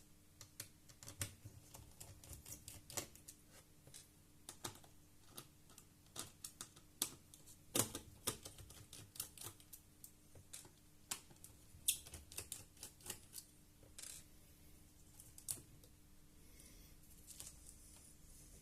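Irregular small clicks and taps of a screwdriver and the plastic laptop chassis as the hard drive's four retaining screws are undone, with a few sharper knocks and a faint steady hum underneath.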